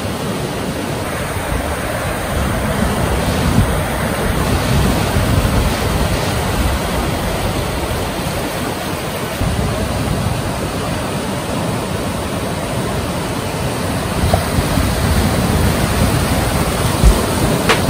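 Ocean surf breaking, a steady rush of waves, with wind on the microphone adding low buffets near the end.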